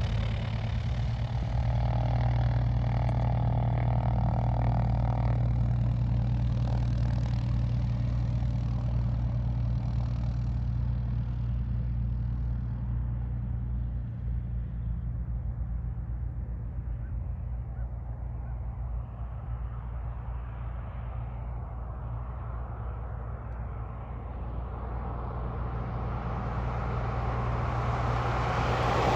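A steady, low engine hum, with a rushing vehicle noise that builds over the last few seconds and peaks at the end.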